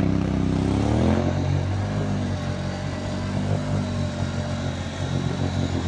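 Can-Am Outlander XMR 650 ATV's V-twin engine revving under load as the quad pushes through swamp water and mud. The revs climb about a second in, then hold steady.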